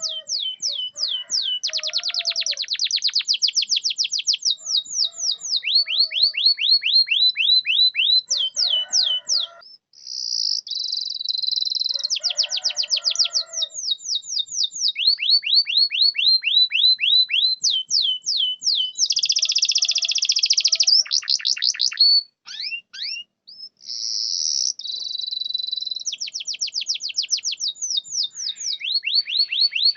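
Domestic canary singing a long, continuous song: trains of quick, repeated downward-sweeping whistled notes, several a second, alternating with buzzier rolling phrases, with a brief break about 22 seconds in.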